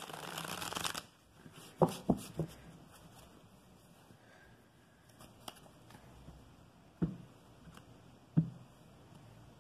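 Tarot deck being shuffled: a quick flurry of cards in the first second, then a few sharp taps as the deck is set down and squared on the table, with two more taps later.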